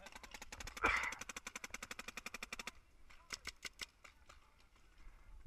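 Paintball markers firing in rapid fire, about a dozen shots a second, with a louder crack about a second in. The fire stops near three seconds in, and a short burst of about six shots follows.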